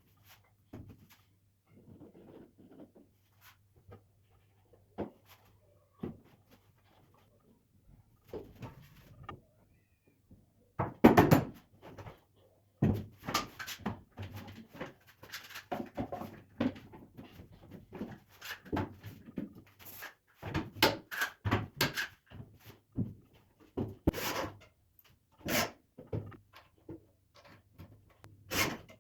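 Irregular knocks, taps and short scrapes of wooden pieces being handled and fitted, sparse at first and busier from about a third of the way in, loudest near 11 seconds, over a faint low hum.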